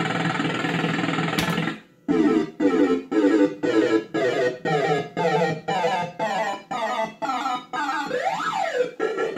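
Bell-Fruit Cash Explosion fruit machine playing its electronic sound effects. A synth jingle cuts off, then comes a quick run of about two and a half beeps a second, stepping upward in pitch. Near the end a tone sweeps up and back down.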